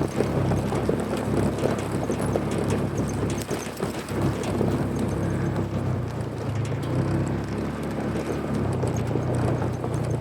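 A vehicle engine running steadily, with scattered clicks and rattles over it.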